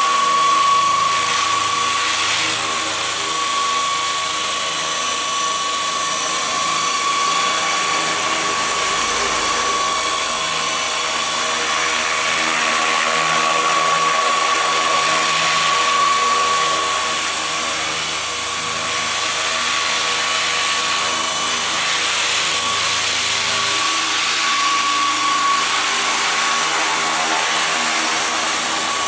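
Electric 700-size RC scale helicopter hovering: a steady whine from its electric motor and drive, with the whir of the spinning rotors.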